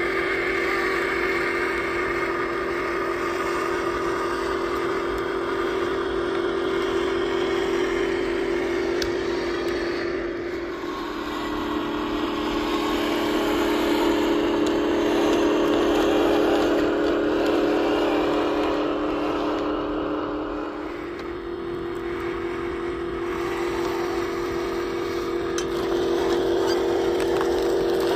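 Radio-controlled dump truck's electric motor and gearbox running with a steady whine, its tone shifting twice.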